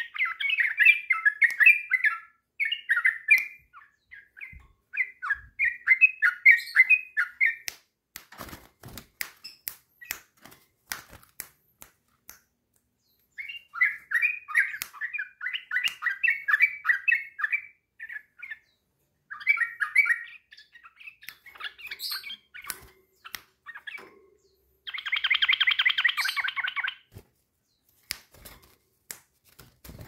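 Yellow-vented bulbul singing in bubbly, chattering phrases, in several bouts with pauses between them. Near the end comes a harsh, buzzy call lasting about two seconds. Sharp clicks and taps are scattered through the pauses.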